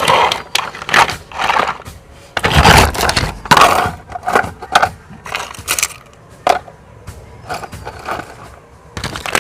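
Irregular clattering and scraping of toys being handled and knocked about, loudest in a run of rough scrapes a few seconds in.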